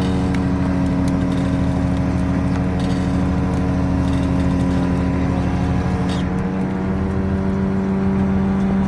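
Fishing boat's engine running steadily at a constant speed, an even hum with a brief click about six seconds in.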